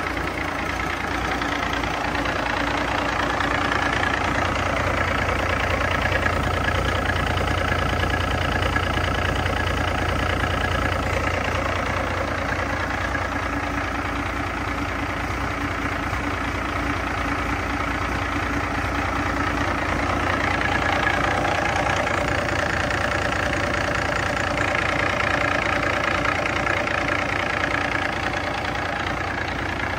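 A 2006 Cummins ISX 15-litre inline-six diesel engine idling steadily on a run stand.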